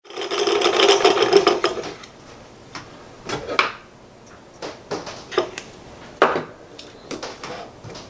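Baitcasting reel cranked briefly, its gears whirring with a fast ticking for about two seconds, then a few light clicks and rustles from handling the line.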